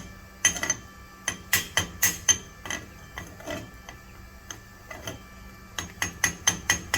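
Steel being struck by a hand hammer in irregular runs of sharp, ringing metal-on-metal blows, several close together near the end; typical of chipping slag off a 7018 stick weld on a steel test coupon.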